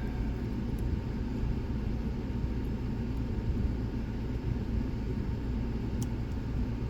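Steady low background hum with a few faint clicks from a pick and tension wrench working the wafers of a wafer lock held in a vise.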